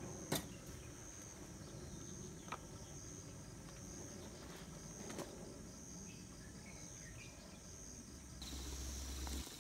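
Insects chirping steadily in a high, rapid pulse, with a few sharp clicks on top, the loudest about half a second in. A low rumble comes in near the end.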